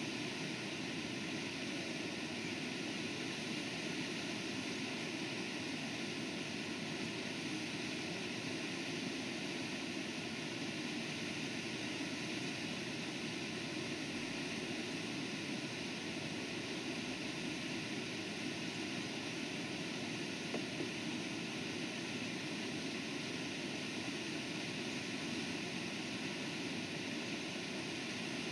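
Steady rush of river whitewater tumbling through rapids below a waterfall, an even unbroken roar.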